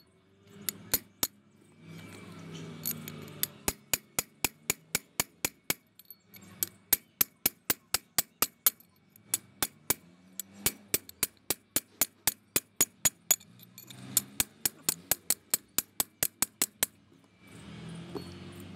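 Runs of quick, evenly spaced light metal-on-metal taps, about five or six a second, on the end of an air compressor shaft to seat its ball bearing in the housing. Between the runs the parts are handled and shifted.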